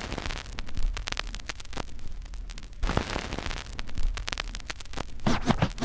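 Electronic sound-design intro effect: crackling static and dense irregular clicks over a low rumble, swelling about three seconds in, with a few short pitched sweeps near the end.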